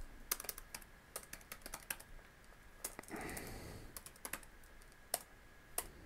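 Faint typing on a computer keyboard: a run of irregular, separate key clicks as a line of code is entered, with a brief soft hiss about three seconds in.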